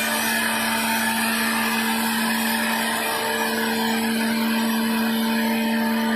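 CNC router spindle running at speed: a steady pitched whine over a dense rushing noise, with a higher overtone of the whine growing stronger about halfway through.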